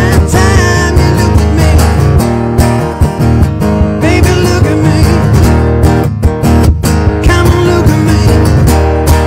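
Acoustic guitar strummed in a steady rhythm over a looped backing layer, with a few short wordless vocal phrases.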